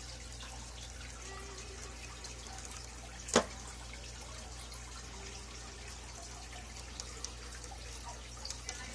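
Aquarium filter water trickling and dripping into the tank over a steady low pump hum, with scattered small drip ticks. One sharp click stands out about a third of the way in.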